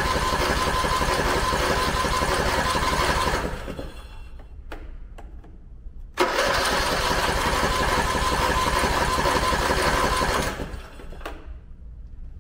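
Briggs & Stratton 20 HP Intek Plus engine on a Craftsman riding mower being cranked over by its electric starter, on choke, in two bursts of about three and four seconds. The starter whines and the engine turns over evenly without catching. The carburetor is still dry after the fuel tank sat empty.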